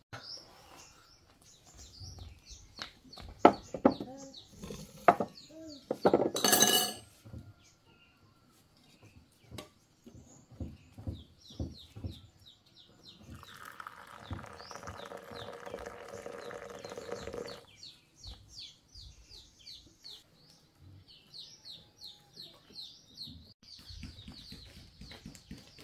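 Bowls and spoons clinking and knocking on a wooden table, with one louder clatter about six seconds in, then water poured from a kettle for about four seconds. Birds chirp repeatedly through the second half.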